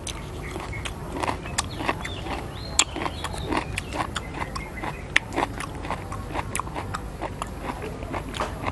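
Close-up chewing and lip-smacking while eating raw shrimp salad with lettuce and chili: a string of irregular wet clicks and smacks, several a second.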